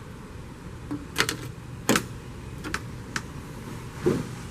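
A few sharp, light clicks and taps, about five scattered over a couple of seconds, then a duller knock near the end, from small car parts being handled.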